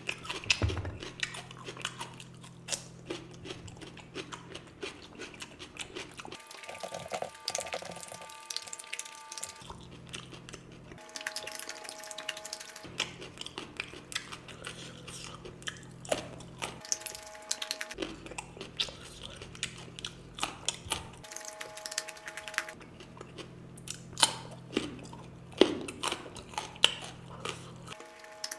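Close-miked eating sounds: chewing, biting and wet mouth smacks, many short clicks in quick succession. A low steady hum underneath cuts in and out several times.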